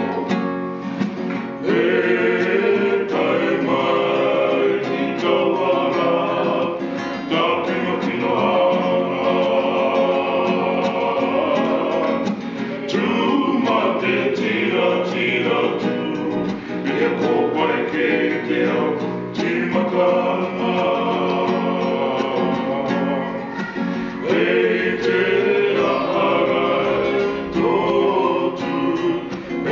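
Male vocal quartet singing a gospel song in Cook Islands Māori in close harmony, accompanied by a strummed acoustic guitar, with short pauses between phrases.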